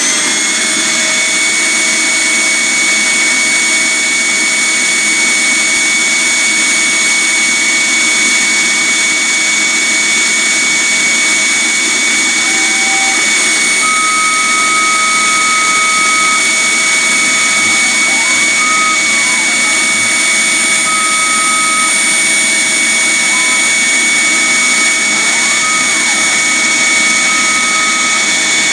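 Vacuum running steadily at full speed, an even noise with a high whine. From about halfway in, a fainter higher tone comes and goes in short stretches.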